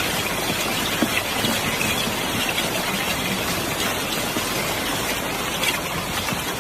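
Heavy rain and rushing floodwater: a steady, loud hiss.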